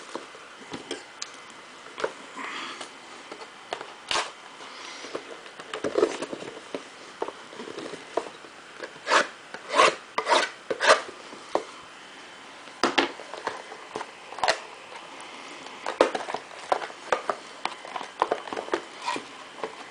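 Clear plastic shrink-wrap crinkling and a cardboard trading-card box being handled and opened, with irregular crackles, rubs and light knocks. The knocks are loudest around the middle.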